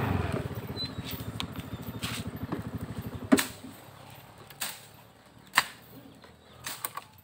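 A motorcycle engine running with a fast, even pulse that fades away over the first three and a half seconds. After it come several sharp clicks or snaps, the loudest about three and a half seconds in.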